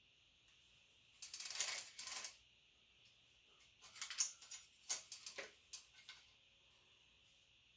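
Bicycle chain links clinking and rattling as the chain is handled: a short rattle about a second in, then a run of sharp metallic clicks between about four and six seconds in.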